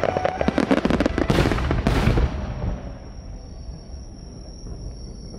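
A fireworks barrage: dense rapid crackling and bangs from many shells bursting at once for about two seconds, then thinning out into a fainter crackle and hiss.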